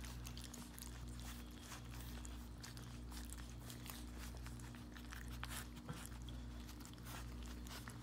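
Several puppies lapping and licking wet gruel from a stainless steel feeding pan: a steady run of small wet clicks and smacks, over a steady low hum.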